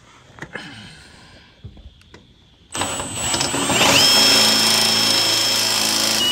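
Electric drill with a step bit, starting up about three seconds in, its whine rising and then running steadily as it bores out a hole in steel sheet for a new ignition switch. Light handling noises come before it.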